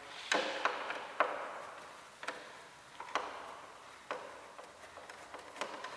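Long Torx T20 screwdriver undoing the screws that hold a car's front grille: about seven sharp clicks and taps at irregular intervals, the loudest in the first second and a half.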